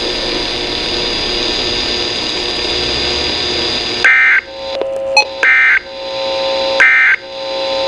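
Weather-radio receiver hissing with static for about four seconds, then three short, loud data bursts of the Emergency Alert System's digital SAME code about a second apart: the end-of-message signal that closes the weekly test.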